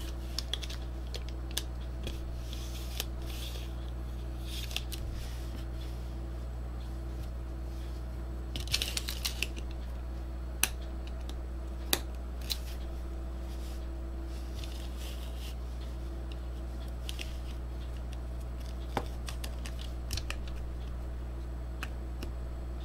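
Scattered small clicks and taps from the plastic and sheet-metal parts of a slim DVD drive being pressed and fitted together by hand, with a short run of clicks about nine seconds in.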